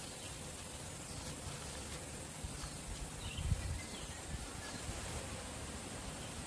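Faint outdoor ambience: a steady hiss with a low, uneven rumble, a few soft clicks, and a soft low thump about three and a half seconds in.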